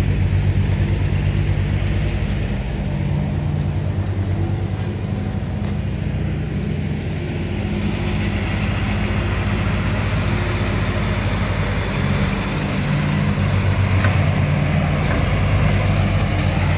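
A large engine running steadily with a low, even hum. Short high chirps come in small groups during the first eight seconds.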